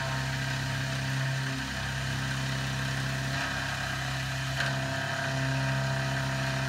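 CNC milling machine cutting a pocket in a mild steel jaw part with an end mill: the spindle runs with a steady hum and cutting noise.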